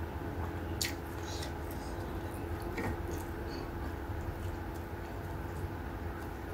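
Close-up mouth sounds of someone eating rice and fish by hand: chewing with a few short wet clicks and smacks, over a steady low hum.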